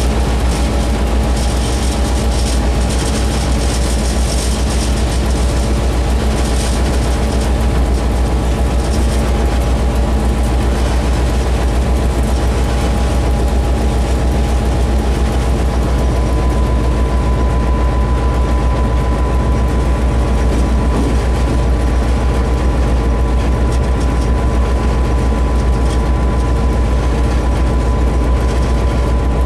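Diesel locomotive engine running steadily, a loud deep drone with a steady whine over it that shifts a little higher about halfway through.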